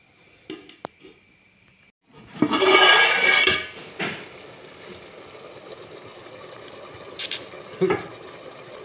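Pork boiling in an aluminium pot: a loud rush of sloshing liquid about two seconds in, then a steady bubbling boil, with two sharp knocks near the end.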